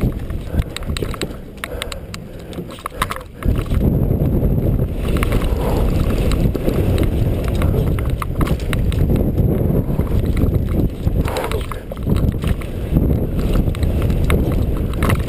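Mountain bike ridden fast downhill on a dirt trail: wind rushing over the microphone, tyres on loose dirt and gravel, and the bike's chain and frame rattling with quick clicks and knocks over the bumps. The rush eases briefly, then comes back louder and stays loud from about three and a half seconds in.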